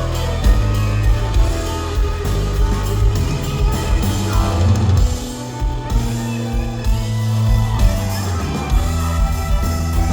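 Country band playing, with guitars over bass and a drum kit keeping a steady beat.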